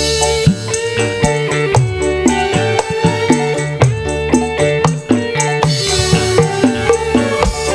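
Loud music with a steady drum beat and shaking percussion, played over a large PA sound system during a sound check.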